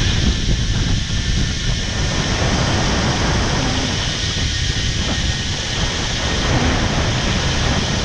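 Zip-line trolley running fast along the steel cable, a loud steady rush and rumble mixed with wind buffeting the microphone.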